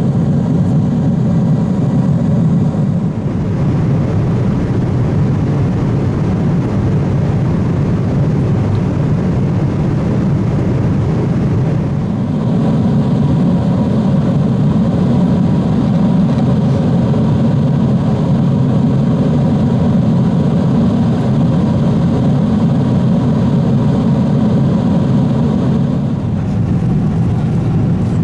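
Steady cabin noise of a Boeing 777-200ER cruising: a loud, even rush of engine and airflow noise. Its tone shifts slightly at edits about 3, 12 and 26 seconds in.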